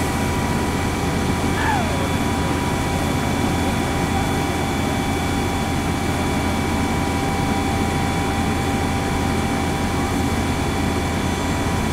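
Fire engine's engine running steadily nearby: a constant low drone with faint, steady high-pitched tones above it.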